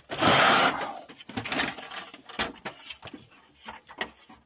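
Handling noise from a desktop computer case being moved: a loud scraping rustle lasting under a second, then a series of light knocks and clicks.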